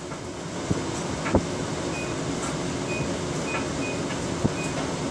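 Microwave oven keypad beeping: five short, high beeps of the same pitch as buttons are pressed, after a couple of sharp clicks, over a steady low hum.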